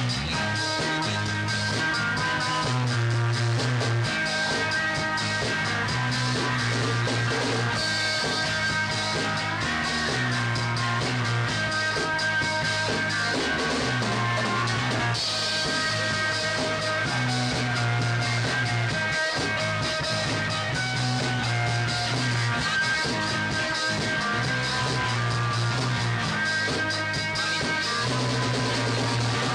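Three-piece rock band playing live: electric guitar lines over a bass guitar repeating notes held a second or two each, with drums and cymbals, at a steady level throughout.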